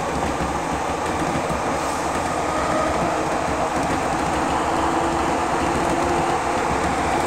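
Nagoya Municipal Subway 3000 series train running underground, heard from inside the car: a steady rumble of wheels on rail with faint motor tones that shift slightly in pitch, growing a little louder near the end.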